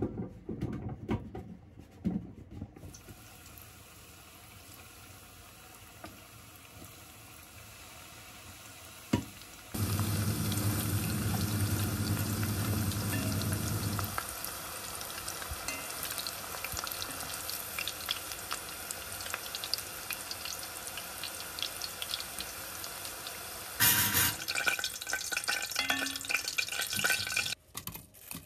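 Potato sticks deep-frying in hot oil in a pot: a dense sizzle full of fine crackles that comes in loudly about ten seconds in and carries on, with a brief louder patch a little before the end. A few clicks and rustles of handling come before it.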